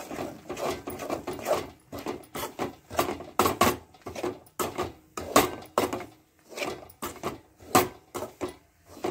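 A steel spoon stirring and scraping chili powder mixed with oil around a metal kadhai, in irregular scrapes and clinks of metal on metal.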